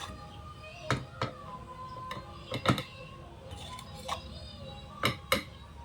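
Three pairs of sharp, light metallic clicks while a ceiling fan's bearing is being oiled, over faint background music.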